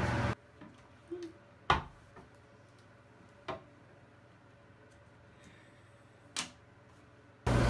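Hard plastic clicks and clacks from a toilet lid and its built-in child seat ring being raised and lowered: a few sharp knocks, the loudest about one and a half seconds in, another about three and a half seconds in and one more about six and a half seconds in.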